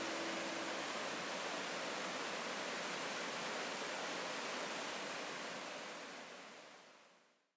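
Steady rushing of a waterfall, fading out to silence over the last couple of seconds.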